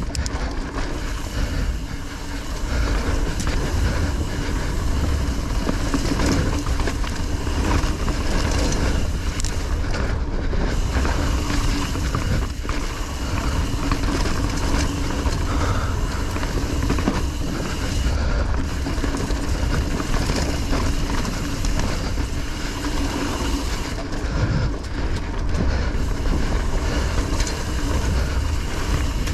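Mountain bike riding a dirt singletrack trail: tyres rolling and chattering over dirt and roots, with wind rumbling on the camera's microphone.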